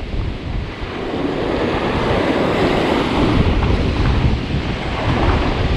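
Ocean surf washing over rocks, a steady rushing that swells in the middle, with wind buffeting the microphone in low gusts.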